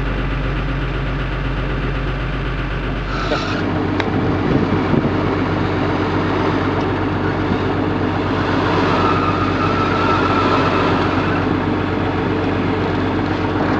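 Off-road 4x4 engine working under load as the vehicle crawls up a steep sand bank; about three seconds in the sound cuts to a Suzuki Samurai's engine running steadily as it crawls through deep sandy ruts, with a few harder revs soon after the cut.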